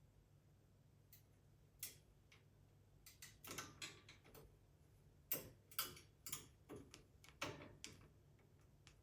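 Faint, irregular clicks and light taps, sparse at first, then thicker and louder through the middle with a few sharper knocks.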